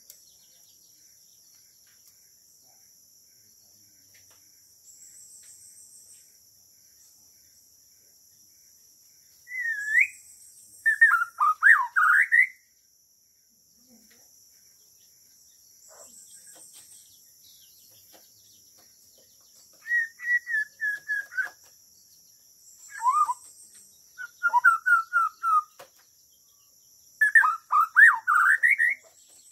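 Bornean shama (murai batu Borneo) singing in four bursts of quick, varied whistled phrases, the first about ten seconds in and the last near the end. A steady high insect drone runs underneath.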